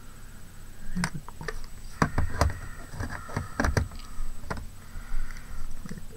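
A quick run of light knocks and clicks from small craft pieces being handled and set down on a table, about a second in and lasting some three seconds, with a few more taps near the end.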